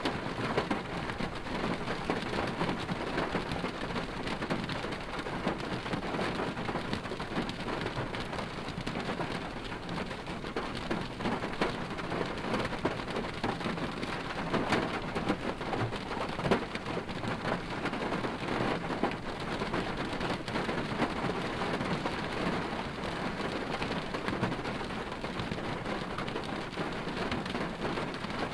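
Steady dense hiss and patter heard from inside a car, thick with small irregular ticks, with no engine note standing out.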